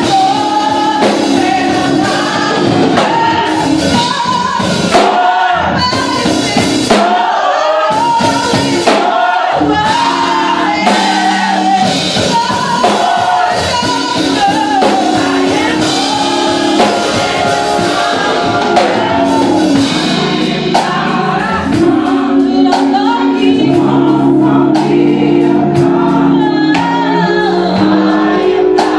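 A youth gospel choir singing, with a female lead voice wavering and riffing over the group and sharp percussive hits keeping time. From about twenty seconds in, the choir holds sustained chords underneath the lead.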